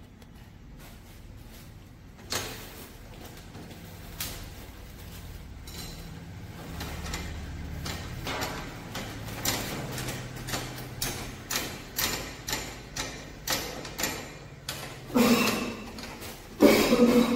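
Metal clicks and knocks from a wrench tightening the nut and bolt of a motorcycle's rear footrest, about two a second and growing louder, with two heavier knocks near the end.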